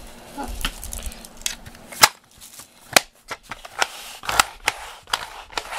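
Sharp plastic clicks and snaps from handling a manual pet-hair roller brush with its hair compartment open, several over a few seconds, the two loudest about two and three seconds in.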